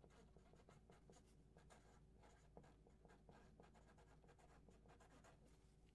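Near silence: room tone with faint, irregular scratching and light clicks.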